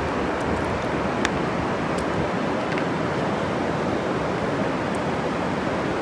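Steady rushing of river water, with a few faint small clicks about one, two and three seconds in.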